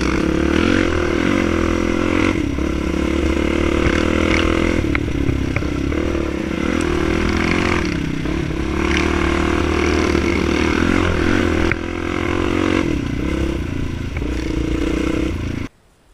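Dirt bike engine heard from the rider's own bike on a rough forest track, the revs rising and falling with the throttle every few seconds. Wind buffets the microphone and the bike rattles throughout. The sound cuts off abruptly near the end.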